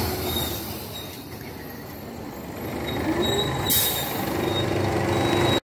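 Mercedes-Benz city bus pulling in close to the curb, its engine running louder as it nears. A short hiss comes about three and a half seconds in, and a steady whine follows as it slows.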